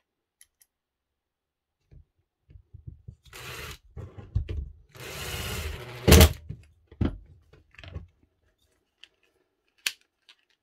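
Cordless impact driver running in two short bursts, driving screws into the plastic housing of a corded drill, followed by a loud knock and a few lighter knocks and clicks as the housing is handled.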